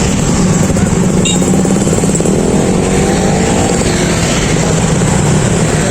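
A motor vehicle engine running steadily close by, amid the din of a busy street market, with a brief change in engine pitch about halfway through.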